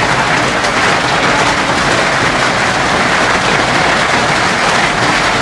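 Heavy rain and hail pelting down, a loud, steady, dense hiss.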